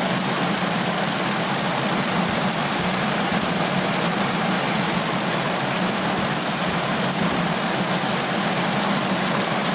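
Steady rain falling on a car roof: an even, unbroken hiss with no single drops standing out.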